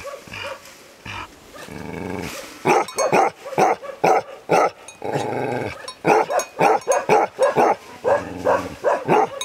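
Tibetan Mastiff barking repeatedly in quick runs of barks, with two longer, drawn-out calls about two and five seconds in.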